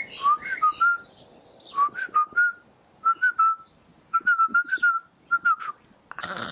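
A woman whistling bird-like chirps: short rising notes in quick little groups, imitating a bird. About six seconds in comes a loud, breathy vocal burst.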